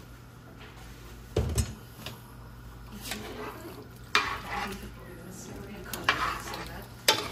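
A spoon stirring a meat stew in a large metal pot on the stove, scraping and knocking against the pot several times, over the sizzle of the hot pot. The loudest sound is a heavy thump about one and a half seconds in.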